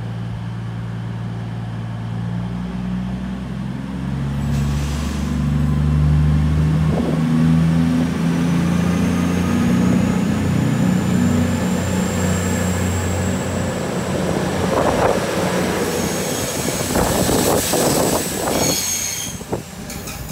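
CrossCountry Voyager diesel-electric unit pulling out of the platform. Its underfloor diesel engines rev up about four seconds in and stay under load, with a slowly rising high whine as it gathers speed and wheel squeal and clatter near the end.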